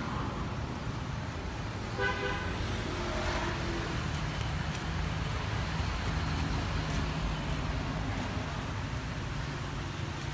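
A vehicle horn gives a short toot about two seconds in, over a steady low rumble of vehicles and traffic.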